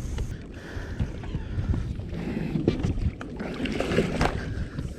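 Wind rumbling on the microphone with water around a boat, then a flurry of splashing and knocking about halfway through as a hooked bass of about three pounds is fought and landed.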